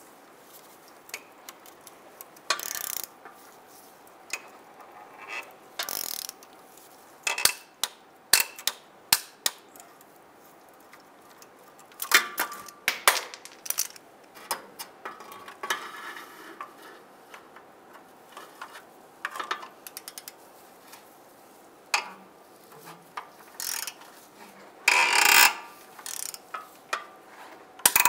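Torque wrench ratcheting in short bursts with scattered sharp clicks and metal clatter, as four exhaust nuts are tightened to 30 foot-pounds.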